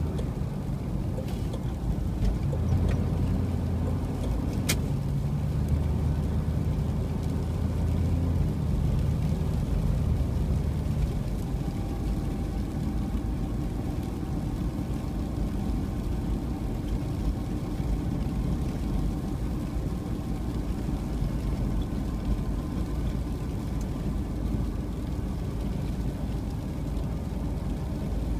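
Car driving along: a steady engine hum with continuous road and tyre noise. The engine note is stronger for roughly the first ten seconds, then settles into a more even rumble.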